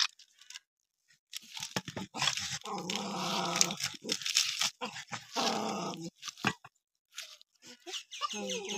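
Wet squelching and crunching of a hand kneading small mourola fish with sliced onion and spice paste in a steel bowl, in bouts starting about a second in. A pitched, voice-like call sounds over it in the middle.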